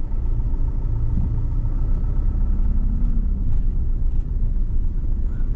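Steady low rumble of the RV's engine and tyres, heard from inside the cab while driving slowly.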